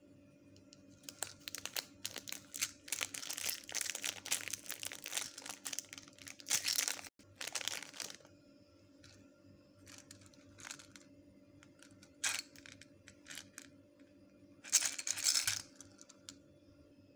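Clear plastic shrink-wrap being torn and crinkled off a small metal mint tin: several seconds of dense crackling, then a few short crinkles and one last longer burst near the end.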